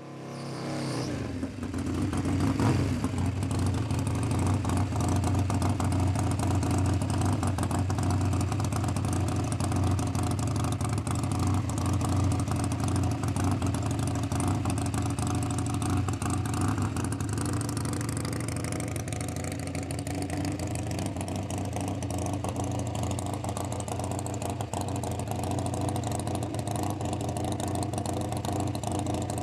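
Drag-racing motorcycle engine running loud and steady, with a burnout at the start, then held at the start line while the bike stages.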